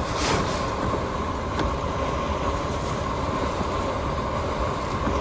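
Steady cabin noise inside a Land Rover: the engine idling with a low rumble and a faint steady hum, with a brief swish just after the start.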